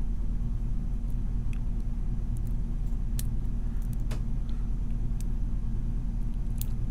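Lock pick and tension wrench working the pins of a brass padlock: a handful of small, sharp clicks spread across a few seconds. Under them runs a steady low hum, the loudest sound.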